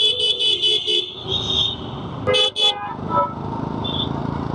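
Vehicle horns honking in dense city traffic: a rapid pulsing horn at about five beeps a second for the first second, then a short high tone. About halfway through comes a brief horn blast, followed by steady engine and road noise.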